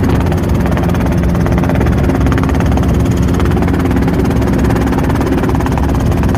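Robinson R22 Beta helicopter running steadily in flight, its engine and rotor giving a constant loud drone with a fast, even beat.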